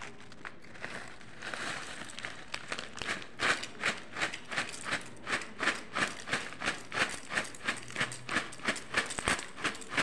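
A cornflakes packet crinkling in rhythmic shakes, about two to three a second, as the flakes are shaken out of it into a bowl of milk; the shaking starts about a second in.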